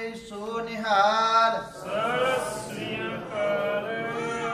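Voices singing a chant in long, drawn-out notes that bend up and down in pitch.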